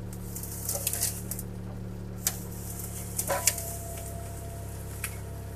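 CAT 303C CR mini excavator's diesel engine running steadily, its note shifting slightly about three seconds in. Over it come sharp cracks and snaps, in a cluster near the start and then singly, as the bucket works through brush and branches.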